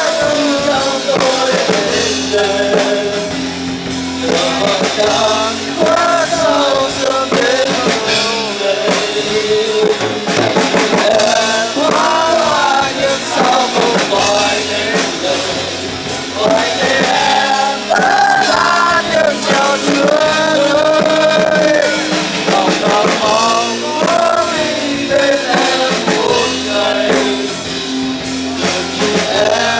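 Rock band music: a full band with a drum kit plays a song, with a melodic lead line weaving above it.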